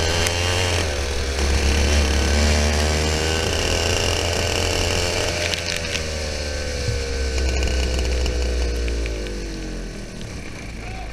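TKM BT82 100cc two-stroke kart engine heard onboard, revving up over about five seconds, then suddenly backing off and slowly winding down in pitch as the kart slows.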